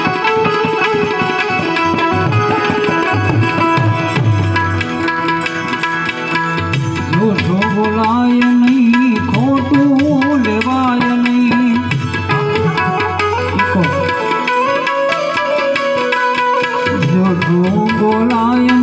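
Gujarati devotional dhun music, instrumental: tabla keeping a busy rhythm under sustained chord tones, with a melody line that slides and bends in pitch coming in about seven seconds in.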